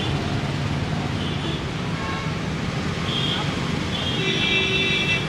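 Steady road traffic noise with indistinct voices. A vehicle horn sounds briefly about three seconds in and again for about a second near the end.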